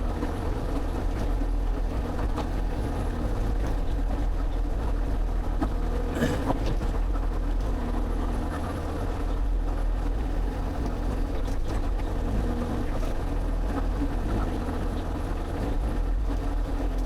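Excavator's diesel engine running steadily while the machine works, with a few short knocks and clunks, the loudest about six seconds in.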